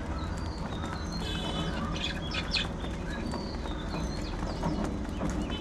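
Budgerigars chattering: many short chirps and warbles overlapping, with a few louder clusters about two seconds in, over a steady low rumble.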